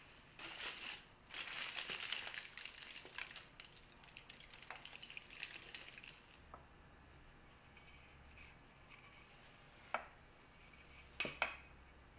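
Aluminium foil holding baking beads being lifted off a blind-baked tart shell: foil crinkling and beads rattling for several seconds. Later, a sharp knock and then a quick double knock as the metal tart tin is handled on the wooden board.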